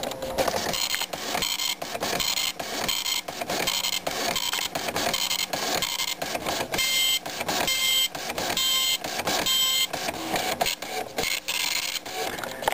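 Citizen GSX-190 9-pin dot matrix printer printing a test page: the impact print head rasps across the paper in short repeated passes, about two a second, with brief pauses between them.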